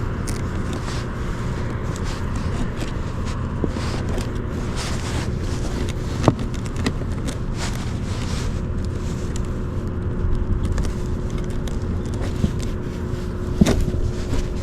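Wind buffeting the microphone in a steady rough rumble, with a faint steady hum underneath and a few light knocks, one sharper about six seconds in.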